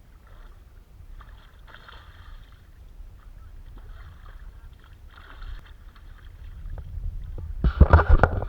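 Water sloshing and splashing with a low wind rumble on the microphone, ending in a loud burst of splashes and knocks near the end.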